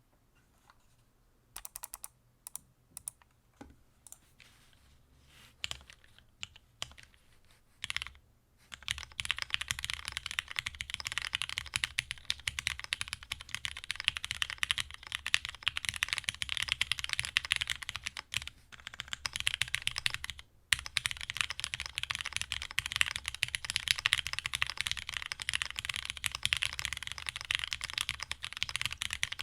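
Typing on a Dolice mechanical keyboard with Cherry MX Black linear switches on a UHMWPE plate and GMK keycaps. A few scattered keystrokes come first, then steady, fast typing from about nine seconds in, with a brief pause near twenty seconds.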